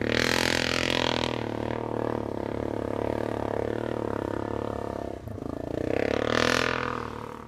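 Yamaha Grizzly 700 ATV's single-cylinder four-stroke engine running hard while the quad churns through deep water. It surges at the start and again about six seconds in, with a brief dip just after five seconds, and each surge brings a louder rushing noise.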